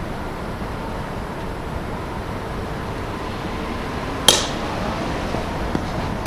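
A single sharp metallic ping about four seconds in, with a brief ring: a metal baseball bat striking the ball. A steady background hum runs underneath.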